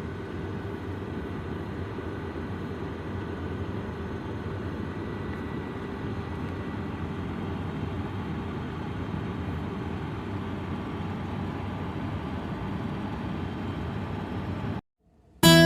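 Steady whirring hum of the Honda N-VAN e:'s air conditioning blower running, heard inside the cabin, with faint steady tones over an even noise; it cuts off suddenly near the end.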